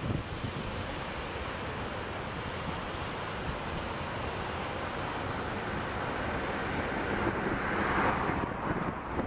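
Wind buffeting the microphone over the steady rumble of a train crossing a railway bridge, swelling briefly near the end.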